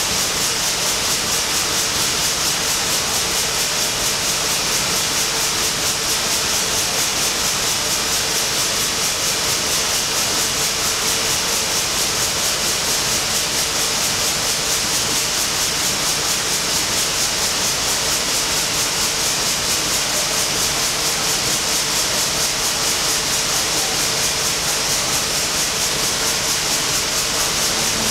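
Steady, high-pitched hiss of running steam machinery, with a fast even pulse and a faint steady hum underneath, in the boiler room of the 1955 reciprocating steamship Shieldhall.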